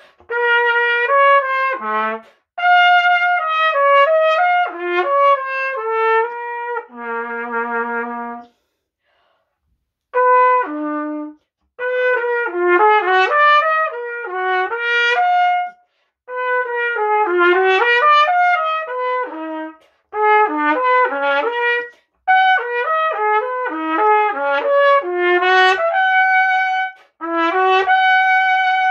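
Trumpet played solo and unaccompanied: quick phrases of short, separate notes jumping up and down in pitch, broken by brief breaths, with one longer pause about eight seconds in.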